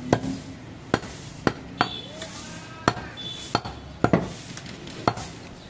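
Heavy butcher's cleaver chopping goat meat and bone against a wooden log chopping block: about eight sharp chops at uneven intervals.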